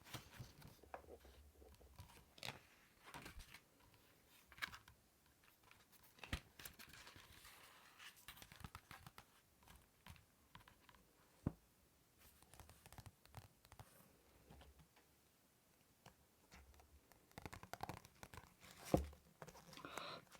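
Faint, close-miked handling of small objects: scratching, rustling and crinkling, broken by scattered sharp taps and clicks, with one louder knock near the end.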